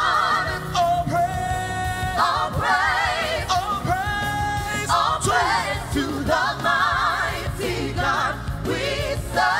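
Live gospel singing: a lead singer's wordless runs and held notes, many with a wide vibrato, with backing singers.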